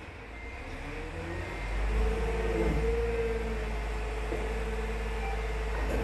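A motor running: its pitch rises over the first couple of seconds and then holds steady, with a low rumble underneath.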